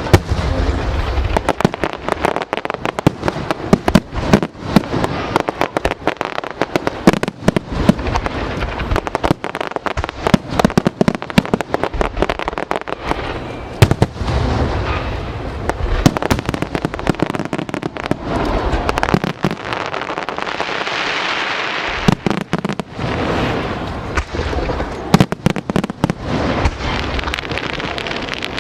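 Aerial fireworks barrage: shell after shell bursting in rapid, dense succession, with a steadier noisy stretch about twenty seconds in.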